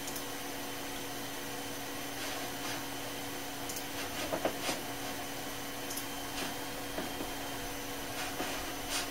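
Dell Optiplex 390 desktop running with its side panel off, its CPU cooler and power-supply fans giving a steady whir with a low hum, with several soft clicks of keyboard keys scattered through, a small cluster about halfway.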